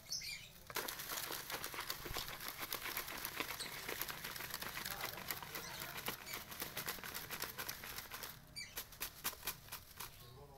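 Bundle of stiff broom fibres whisking a white wall-paint mixture in a plastic bucket: a fast, wet swishing and scratching of bristles through the paint and against the bucket. It thins to scattered clicks near the end.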